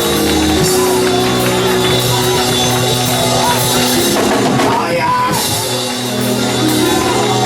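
Live church praise music: sustained keyboard or organ chords with drums, and voices singing over them.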